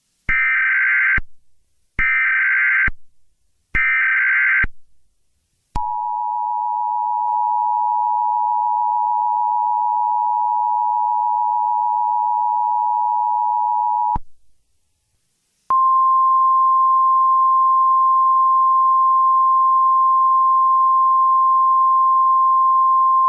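Emergency Alert System tones. First come three bursts of the screeching digital SAME header, each about a second long. Then the two-tone EAS attention signal sounds steadily for about eight seconds and cuts off. After a brief gap a single steady alert tone begins.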